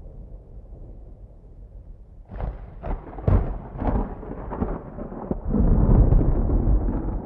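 Thunder: a low rumble, then about two seconds in a crackling clap with several sharp cracks, rolling on into a loud, deep rumble near the end.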